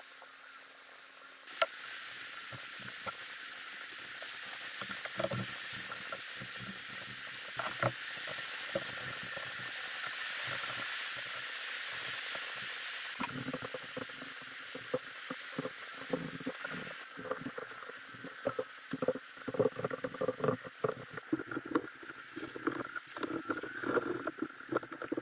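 A gloved hand wiping wood stain onto a pine table with a rag, heard as a steady scratchy rubbing hiss. From about halfway it gives way to a busy run of irregular soft knocks and scuffs as the rag and hands work over the frame and legs.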